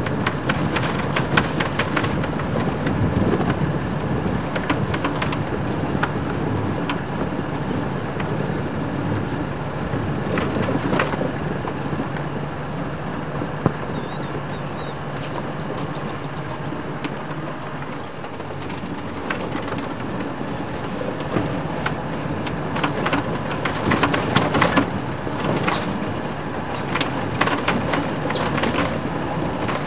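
Open game-drive vehicle driving along a rough dirt track: the engine runs steadily under many knocks and rattles from the bumpy ride, and the engine note drops lower a little past halfway.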